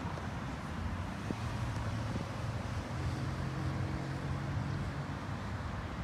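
Low, steady engine rumble mixed with wind noise on the microphone; a steady low hum comes in about a second in and stops near the end.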